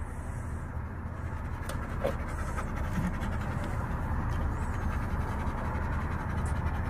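A large Komondor–standard poodle cross dog panting after play, with a steady low hum underneath.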